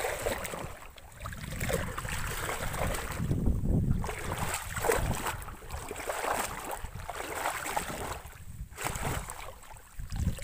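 Shallow muddy pond water sloshing and splashing as a person wades and stirs it, with wind rumbling on the microphone.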